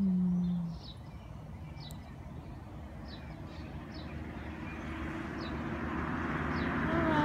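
A car approaching along the road, its tyre and engine noise growing steadily louder through the second half. Birds chirp now and then, and a short low hum sounds at the very start.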